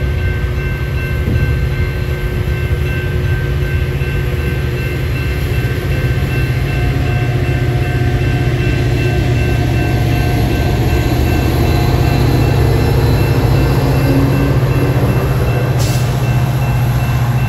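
Metra bilevel commuter coaches rolling past with a steady rail rumble, while the grade-crossing bells ring throughout. The rumble grows heavier toward the end as the train's EMD F40PH diesel locomotive comes by.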